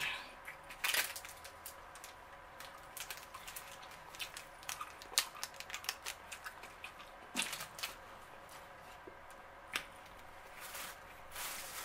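Scattered short crinkles and clicks of a small plastic sauce packet and takeout wrappings being handled, a few louder ones about a second in and again past seven seconds in.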